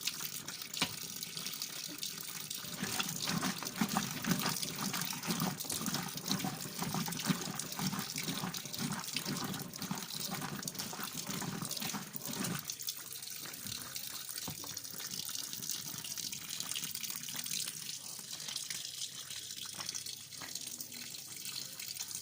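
Water rushing and splashing in a washing machine's tub. About halfway through, the heavier, deeper splashing stops, and a lighter steady rush of water goes on.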